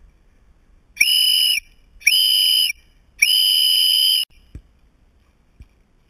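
Three blasts on a whistle: two short ones and a longer third, each held on one steady high pitch.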